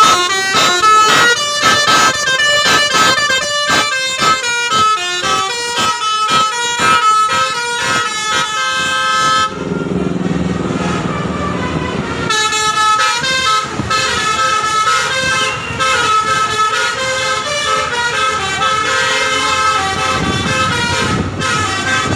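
A bus's telolet basuri air horns playing a tune in quick stepping notes. The tune breaks off for about three seconds near the middle, where a lower rumble takes over, then starts again.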